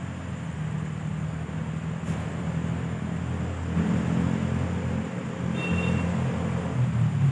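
A motor vehicle engine running, a steady low rumble that swells a little about four seconds in and again near the end.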